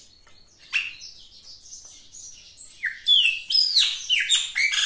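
A bird chirping: one loud downward-sweeping chirp about a second in, then a quick run of loud, falling chirps, several a second, from about three seconds in.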